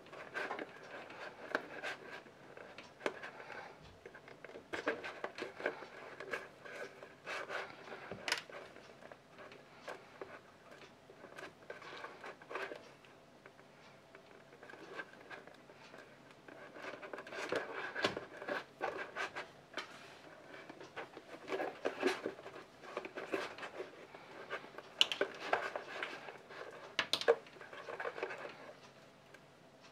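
Leather and hand tools being worked on a workbench: irregular clusters of small taps, clicks and scrapes, over a faint steady hum.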